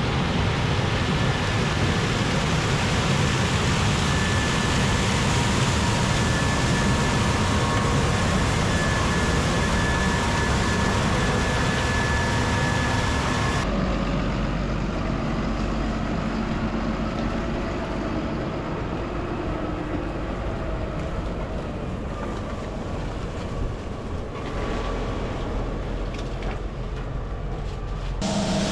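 Heavy harvest machinery running steadily, with a faint high steady whine over the engine noise. About fourteen seconds in, the sound changes abruptly to a duller, lower machine rumble with less hiss.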